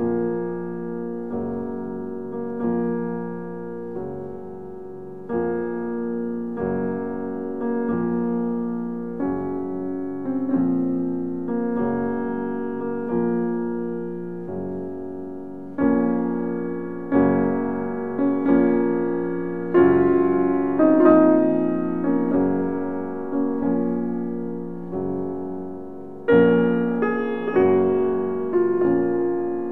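Background piano music: notes and chords struck about once a second, each left to fade.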